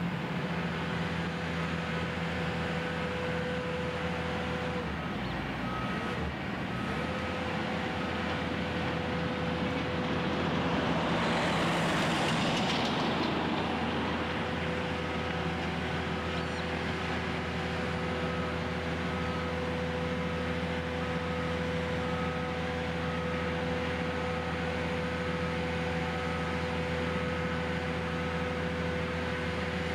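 Heavy machinery running steadily, a diesel-engine hum, with a faint beep repeating about once a second. A vehicle passes close about twelve seconds in, the loudest moment.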